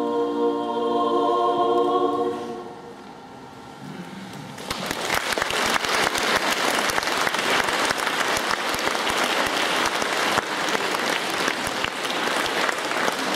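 Women's a cappella vocal quartet holding a final sung chord that ends about two seconds in and fades out; after a short pause the audience applauds steadily.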